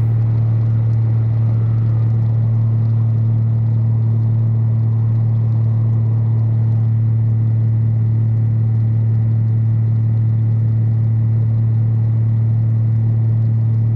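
Single-engine light aircraft's piston engine and two-blade propeller droning steadily in level flight, a constant low hum over the rush of airflow.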